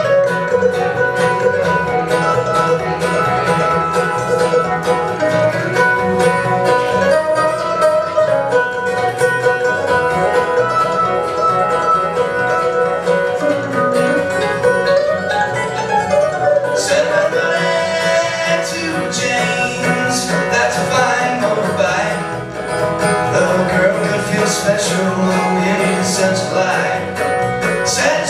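Acoustic string band playing an instrumental passage with mandolin, acoustic guitar, upright bass and fiddle. Plucked strings run over a steady bass line, and the picking grows busier about halfway through.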